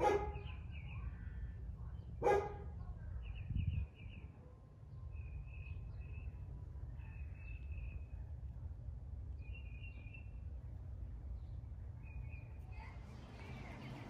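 A dog barks twice, about two seconds apart, near the start. After that, faint high bird chirps come in short repeated runs over a low steady background rumble.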